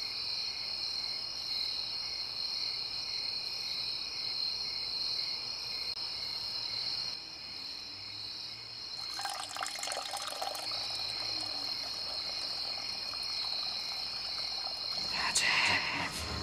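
Night insects, crickets, chirping in a steady high chorus. A rough, crackling stretch of noise comes about nine seconds in, and a short louder sound near the end.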